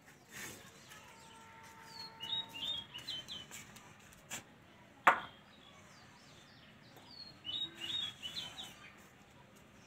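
Small birds chirping in two bouts of quick, repeated short notes, about two seconds in and again near the end. About five seconds in comes a single sharp knock, the loudest sound: a clay brick set down on a stack of bricks.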